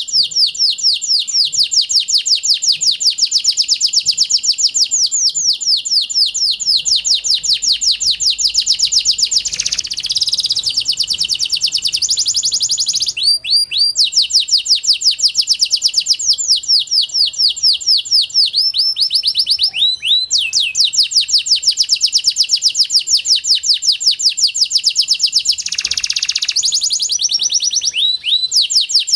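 Pied domestic canary singing: long, fast trills of rapidly repeated falling notes, broken a few times by short slurred whistles.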